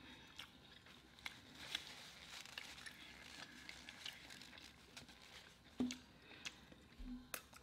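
Very faint, scattered small clicks and soft crinkling of a paper napkin being handled, with a couple of slightly louder clicks near the end.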